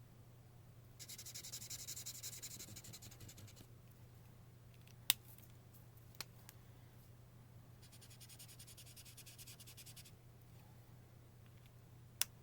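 Marker nib scribbling on paper in two spells of rapid, scratchy strokes, laying down a colour swatch. Three sharp clicks fall between and after the spells, the first the loudest.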